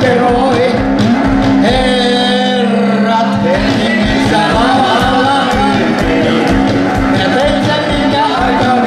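Live rock music from a one-man band: amplified guitar over a steady bass-drum beat. The bass drum drops out for a moment about two seconds in, then comes back.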